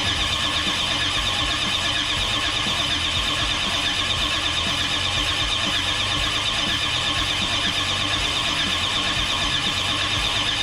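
Starter motor steadily cranking a 5-litre V8 that does not fire. The owner suspects no fuel is getting through.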